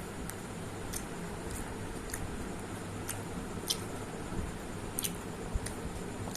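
A person eating: wet mouth clicks and smacks while chewing, scattered about one or two a second, over a steady low hum.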